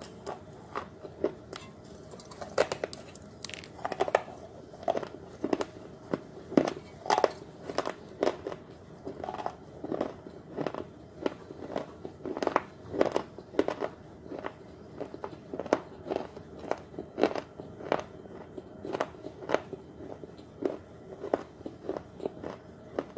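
A person biting and chewing pieces of a fired terracotta clay pot: dry, crisp crunches coming unevenly, about one to three a second.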